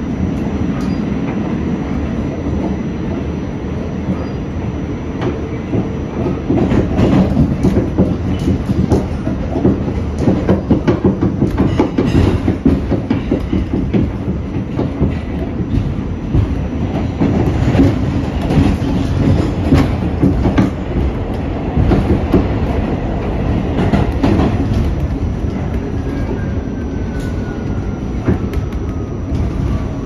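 R46 subway car running on the N train, heard from inside the car: a steady rumble of wheels on rail, with a stretch of dense clatter over rail joints and switches in the middle. A faint falling whine comes in near the end.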